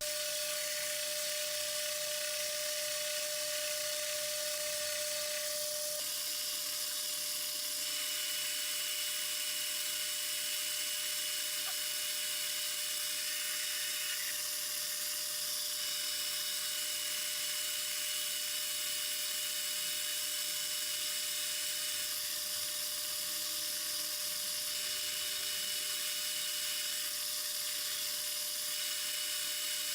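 Lathe running with a steady high whine while turning a new front-wheel spacer. A higher tone comes and goes several times as the work goes on.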